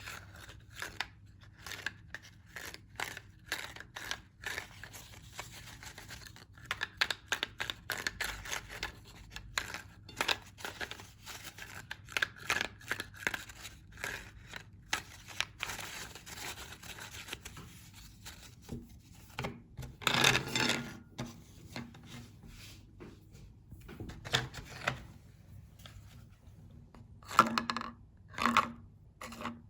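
Meat grinder crushing crunchy cookies: a dense run of irregular crackling crunches, with a louder crunch about two-thirds of the way through and two more near the end.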